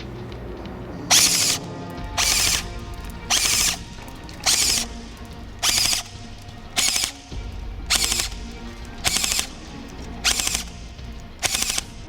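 WE SCAR H airsoft electric rifle (AEG) firing ten short bursts, about one burst a second, with background music underneath.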